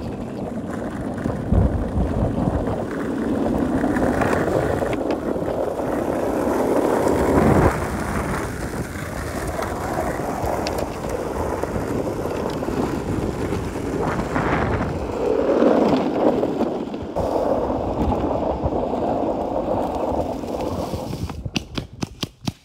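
Skateboard wheels rolling over rough asphalt: a continuous gritty rumble that swells and fades with the ride, with a few sharp clicks near the end.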